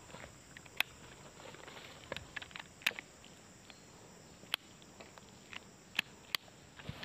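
Footsteps on dry leaves and twigs, a scattering of sharp, irregular crackles, over a faint steady high hum of insects.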